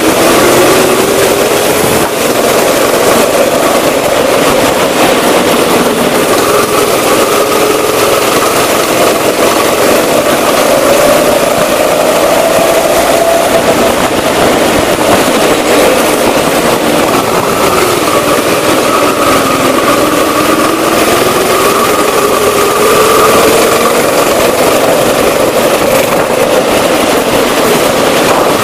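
Rental go-kart running flat out around a track, heard from on board; its pitch rises and falls repeatedly with the throttle through the corners, with a dip about twenty seconds in.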